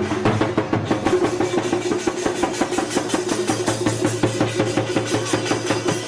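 Background music with a fast, steady percussive beat over sustained pitched tones.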